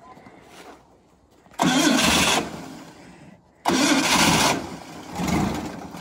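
Cold gas engine of a sawmill power unit being cranked to start, in two tries about two seconds in and about four seconds in. Each try is loud for about a second, then fades away: the engine almost catches but doesn't yet run.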